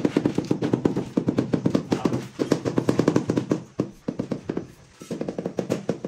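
Rubber mallet tapping a ceramic plank tile down into its mortar bed: quick dull knocks, about eight a second, in runs broken by short pauses, with a longer gap a little past the middle.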